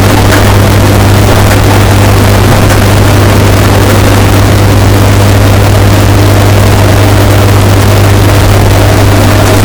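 Washing machine running, heavily bass-boosted and distorted into a loud, steady deep drone with a rough noisy hiss above it.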